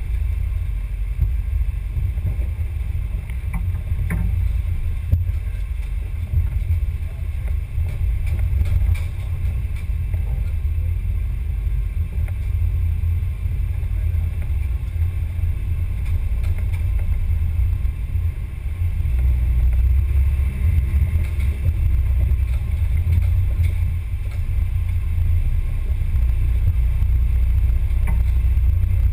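Steady low rumble picked up by the camera riding on an RC rock crawler as it drives over a bumpy dirt trail, with a few light clicks. It grows louder from about two-thirds of the way in.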